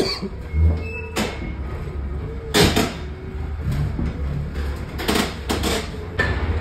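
Manual pallet jack loaded with a large wooden crate being pushed across a box truck's floor: a low rolling rumble broken by several sharp knocks and clunks.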